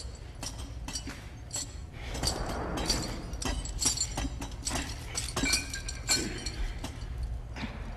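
Heavy steel chains clinking and rattling as men climb them hand over hand, with many sharp metallic clinks over a steady low drone.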